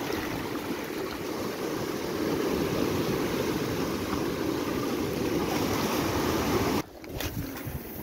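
Ocean surf washing against a rocky shore: a steady rush of breaking water. It drops off abruptly near the end.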